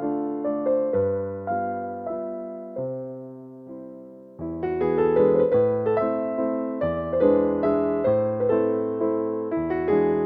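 Background piano music: gentle melody with chords, each note fading after it is struck, growing sparser and quieter, then resuming fuller about four seconds in.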